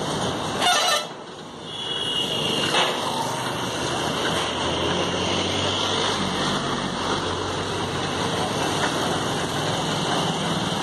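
Heavy vehicle engine running amid steady road traffic noise, with its low hum more prominent in the second half. A short loud noise about a second in.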